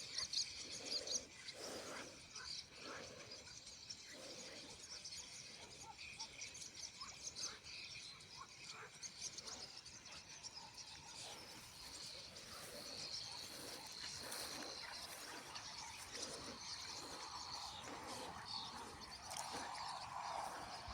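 A flock of birds calling, a dense, continuous chatter of short high chirps, with a person's heavy breathing close to the microphone.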